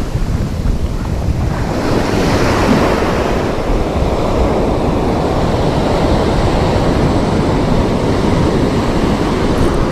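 Ocean surf breaking and washing up a sandy beach, a rush of hiss building about two seconds in, with wind buffeting the microphone.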